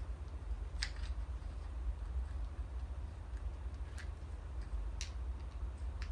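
Four light, sharp clicks, scattered a second or three apart, from parts and tools being handled while the motorcycle is taken apart, over a steady low hum.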